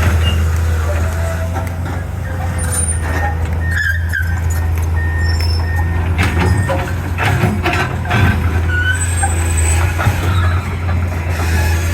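Excavator engine running steadily under load, with scattered metallic knocks and short squeaks from the machine working.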